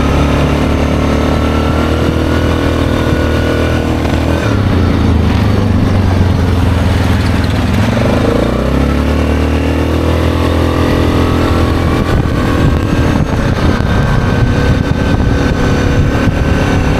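ATV engine running at riding speed on a gravel road, easing off a few seconds in and picking up again about halfway through, as a pickup truck passes close by.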